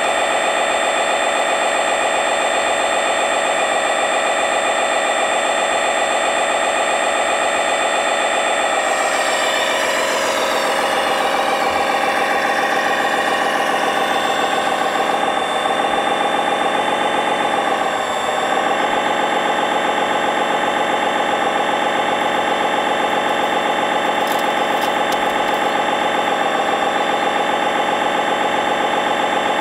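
1/14-scale RC wheeled excavator (Lesu ET30H) running: a steady, engine-like drone with a buzzy whine. Its pitch shifts about ten seconds in and dips briefly around eighteen seconds.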